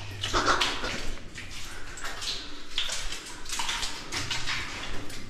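Footsteps wading through water and mud in a flooded mine passage: irregular sloshing and splashing.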